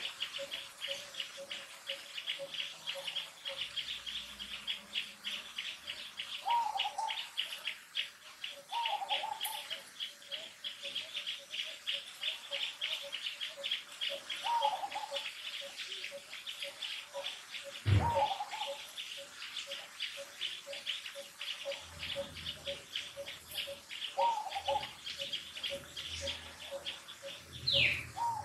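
Birds chirping and calling over a steady, fast, even chirping. A short call comes back every few seconds, there is a single low thump about two-thirds of the way through, and a few falling whistled calls come near the end.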